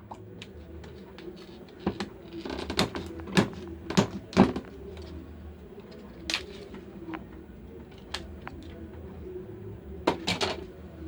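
Irregular plastic clicks and taps from a mobile phone being taken apart by hand, with a quick cluster of sharper knocks about two to four seconds in and another near the end.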